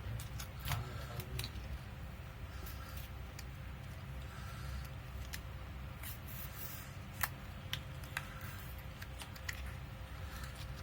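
Small, sharp clicks and taps at irregular intervals from hand tools working on a smartphone's plastic and metal parts as it is taken apart, over a steady low hum.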